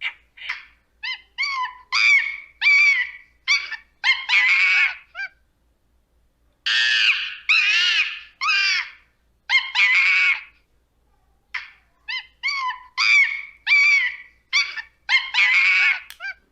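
Monkey screaming: bouts of short, high-pitched calls that build into longer, louder screams, broken by pauses of about a second.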